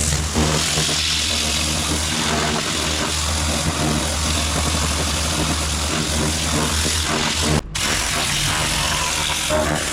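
Pressure washer (jet wash) running steadily, its motor or pump humming under the hiss of the water jet spraying onto steel car wings to strip off underseal. The sound cuts out for an instant about three quarters of the way through.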